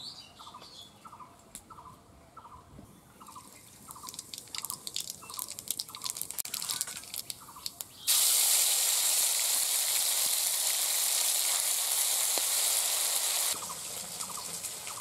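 Mustard oil heating in a steel wok, with black seeds crackling and spitting in it; about eight seconds in, a spatula of ground paste goes into the hot oil and it sizzles loudly for about five seconds before easing to a softer sizzle. A bird's short chirp repeats about twice a second through the quieter parts.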